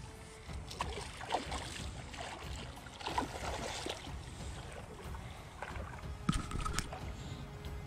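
A hooked fish splashing and thrashing at the surface in shallow water as it is reeled to the shore, in irregular bursts of splashing, loudest about six seconds in.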